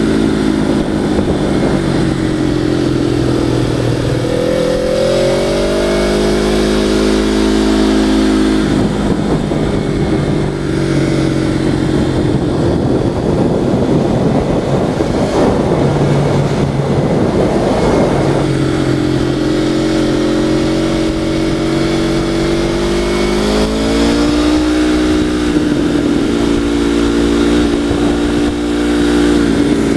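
A vehicle's engine heard from a helmet-mounted camera, running under load the whole time. Its pitch climbs as it accelerates about four seconds in and again after about twenty-three seconds, with rougher, noisier stretches between.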